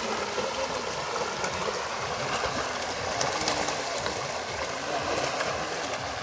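Water churning and splashing from many pangas catfish thrashing at a pond's surface, with a steady run of small, sharp splashes.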